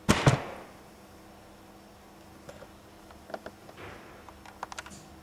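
Two loud knocks in quick succession, then scattered soft clicks and a brief rustle from handling objects.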